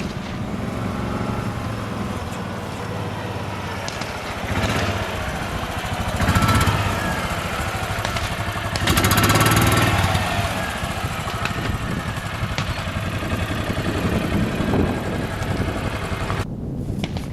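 An engine running steadily, swelling louder twice, then stopping abruptly near the end.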